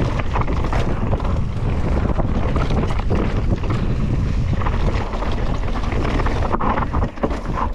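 Mountain bike descending a dirt trail at speed: steady wind buffeting the camera microphone over the rush of tyres on dirt, with frequent clicks and knocks from the bike rattling over bumps.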